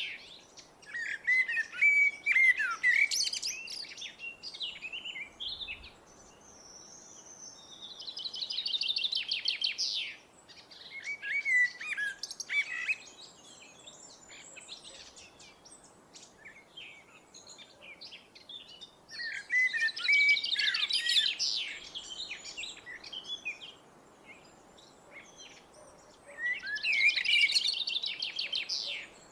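Blackbird singing: four phrases of warbled whistled notes mixed with higher, rapid twittering, separated by pauses of a few seconds.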